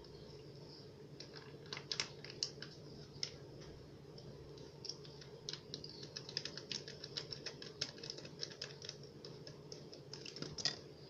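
Paper-foil Kool-Aid drink-mix packet crinkling and tapping in quick, irregular small clicks as it is shaken to empty the powder into a plastic jug.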